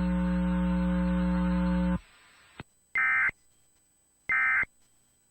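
A steady electrical hum cuts off about two seconds in, followed by two short, identical bursts of digital data tones about a second and a half apart: the Emergency Alert System's end-of-message code closing the test.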